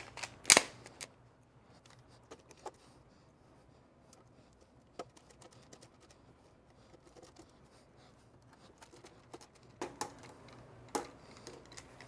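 Scattered small clicks and ticks of a screwdriver and case screws as the screws are driven back into a NAS chassis. There is a sharp click about half a second in and a few more clicks near the end.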